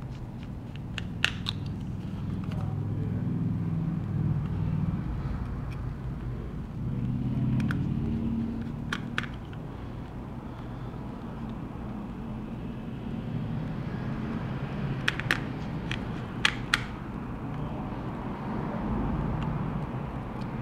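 Small sharp clicks of metal tools against phone parts, a few at a time about a second in, once around the middle and a cluster near the end, over a steady low rumble that swells twice in the first half.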